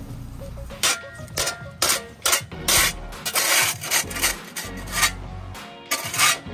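Flat steel shovel scraping across a concrete pad in repeated short strokes, about two a second, clearing off dirt and debris.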